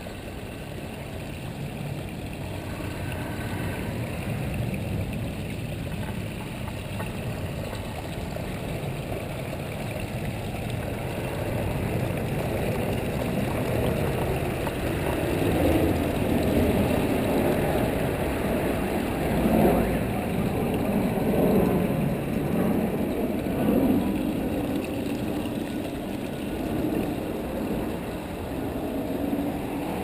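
Wind buffeting the microphone in low, uneven gusts that grow louder in the second half, over the running water of a small backyard pondless waterfall splashing over rocks.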